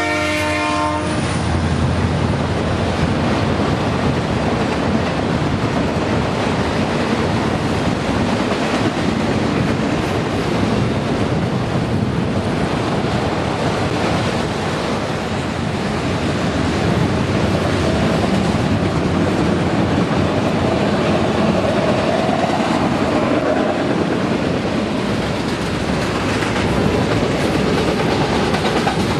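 A diesel locomotive's air horn chord cuts off about a second in, then a freight train rolls past in a steady, loud rumble with its wheels clacking over the rail joints.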